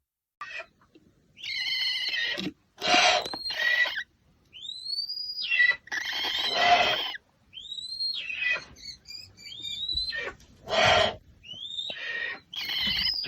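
American barn owl giving a series of harsh, hissing screeches, each lasting under a second, repeated with short gaps. Thin rising-and-falling whistled notes sound between the screeches.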